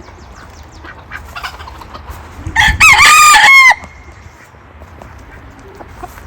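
A rooster crowing once, loud and close, starting about two and a half seconds in; the call lasts a little over a second, rising and then dropping away at the end.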